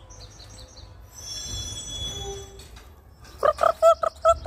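Faint high bird chirps, then about three seconds in a loud, rapid run of about seven short clucking calls, like a chicken or turkey call.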